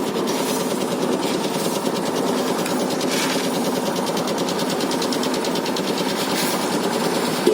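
Construction machinery running steadily with a fast, even rattle.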